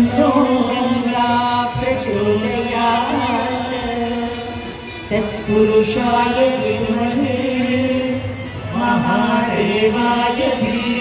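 Devotional aarti hymn sung as a chant over musical accompaniment, with a steady held drone beneath the voices.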